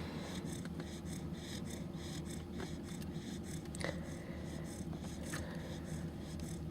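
Fox red Labrador puppy snoring in its sleep, soft raspy breaths over a steady low hum, with a faint click nearly four seconds in.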